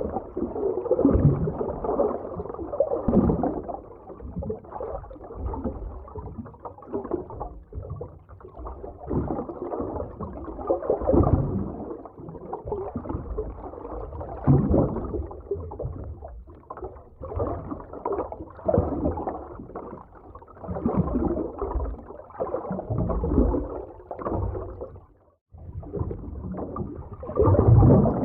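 Muffled underwater ocean ambience: dull, gurgling water movement that swells and fades every second or two, with a brief drop-out about three seconds before the end.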